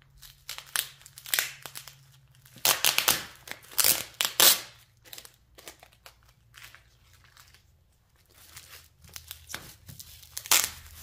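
Plastic packaging crinkling and tearing as a kit bag is opened by hand, in irregular bursts, loudest from about three to four and a half seconds in and again near the end.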